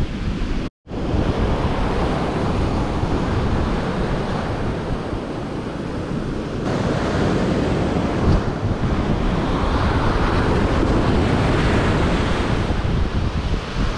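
Surf breaking and washing up a sandy beach close by, with wind buffeting the microphone as a low rumble. The sound cuts out completely for a split second about a second in.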